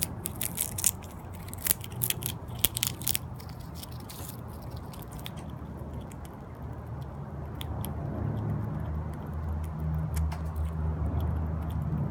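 Gray squirrel crunching and chewing a peanut close up: a quick run of sharp crunches in the first five seconds, then fewer, scattered bites. A low rumble underneath grows louder in the second half.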